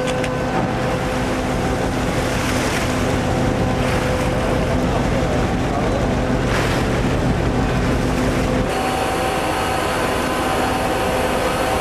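Tuna purse seiner at sea: a steady machinery drone with a constant hum, mixed with water rushing and splashing along the hull and wind on the microphone. About nine seconds in, the deep part of the drone drops away and a thinner, higher machinery hum remains.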